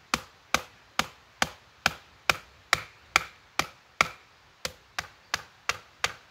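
Batoning: a wooden baton strikes the spine of a First Edge 5050 knife in a steady run of sharp knocks, a little over two blows a second, driving the blade down through a thick round of hardwood on a chopping stump. There is one slightly longer gap about two thirds of the way through.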